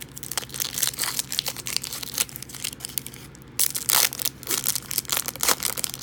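Foil trading-card pack wrapper crinkling and tearing as the pack is ripped open, in irregular crackly bursts with a short pause midway and louder crinkling in the second half.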